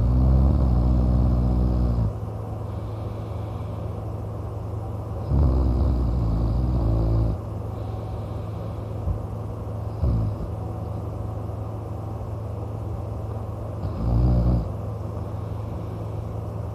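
A man snoring loudly: four snores, coming every four to five seconds. The first two are long, a short one comes about ten seconds in and another near the end. A steady low rumble fills the gaps between them.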